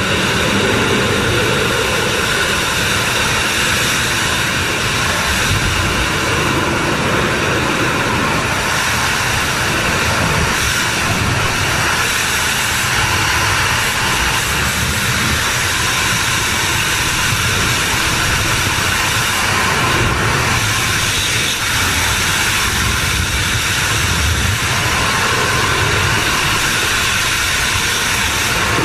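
Loud, steady roar of rushing air, like the wind blast of freefall, with only slight swells and dips.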